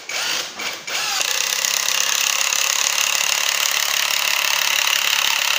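Cordless JLD impact driver boring a long bit into a wooden plank: a few short trigger blips of the motor, then from about a second in it runs continuously under load with a dense rapid hammering rattle from its impact mechanism.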